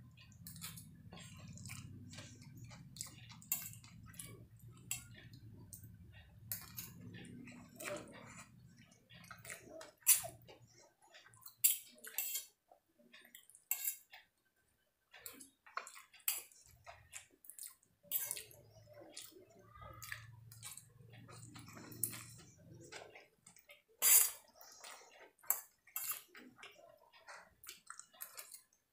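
Close-miked wet chewing, slurping and lip smacks of a person eating noodles, with many sharp mouth clicks and the odd clink of a fork on a steel plate. A low steady hum sits underneath for the first ten seconds or so and again around twenty seconds in.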